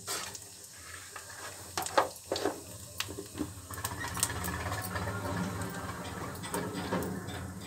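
Cumin seeds sizzling and crackling in hot mustard oil in a kadhai, with scattered pops that thicken into a steady crackle after a few seconds. A single sharp click stands out about two seconds in.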